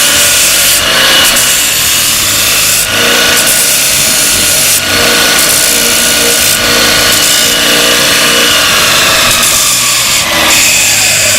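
Multitool belt sander running a 100-grit belt, with a steel railway spike pressed against it grinding the rust off: a loud, steady grinding hiss over the machine's whine, with the pressure easing and coming back every second or two. Near the end the whine drops in pitch as the machine starts to wind down.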